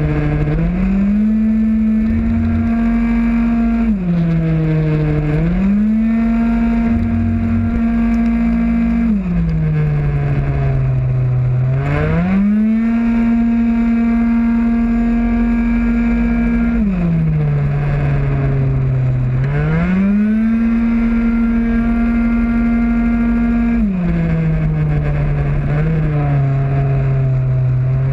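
Racing 50cc two-stroke MBK Mach G scooter engine at full throttle, heard from on board. Its high, buzzing note climbs quickly and then holds at one steady pitch on each straight, then falls each time the rider backs off for a corner. This happens four times, and the note is climbing again near the end.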